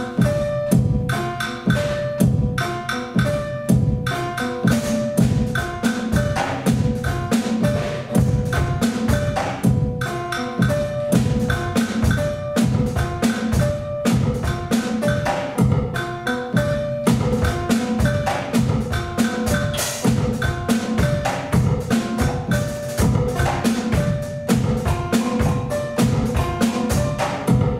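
Live improvised band music: a drum kit played in a dense, busy stream of strokes, with short repeated pitched notes over it.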